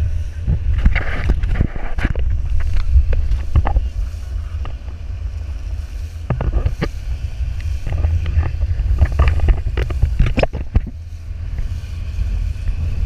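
Wind buffeting the microphone of a camera riding a towed banana boat, a steady deep rumble, with water spray and splashes slapping against it at irregular moments as the boat skims across the wake.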